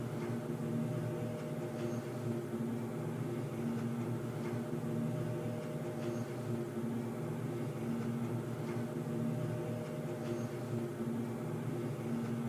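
Underground ambience sound effect: a steady low droning hum of several held tones, one of them swelling and fading about every two seconds, with a few faint short high blips.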